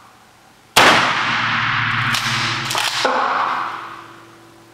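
French military pump-action shotgun being fired, echoing in an underground range: a loud shot under a second in that rings on, then sharp clacks and another blast near the three-second mark that dies away by about four seconds.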